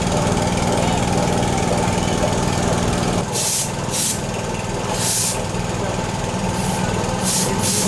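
A small engine running steadily, easing off about three seconds in, with six short hissing bursts over it in the second half.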